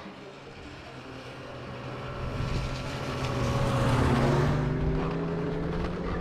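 Snowmobile engine approaching and passing by. It grows louder to a peak about four seconds in, drops slightly in pitch as it goes past, and then begins to fade.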